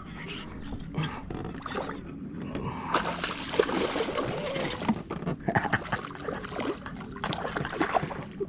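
A hooked hampala thrashing at the water surface while being reeled in, splashing repeatedly and most heavily from about three seconds in.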